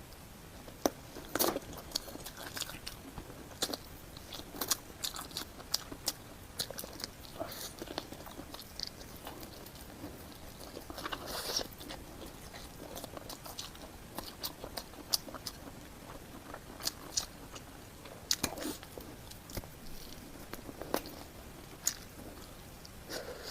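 Close-up sounds of a person chewing and biting food, with irregular sharp clicks and short wet smacks.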